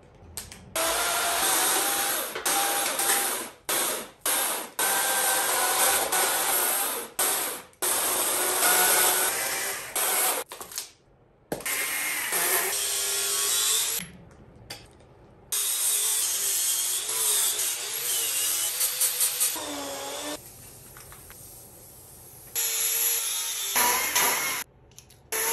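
Carving chainsaw cutting into a wooden log, its motor pitch rising and falling as it cuts. The sound comes in a string of short stretches that stop and start abruptly, with a quieter, lower-level stretch in the middle.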